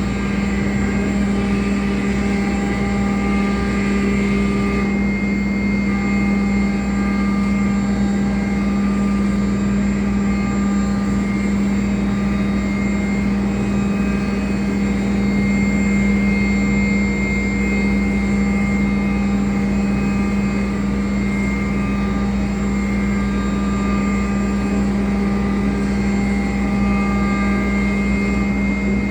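CNC router running steadily: a constant machine drone with a strong, even hum, and faint higher tones that come and go.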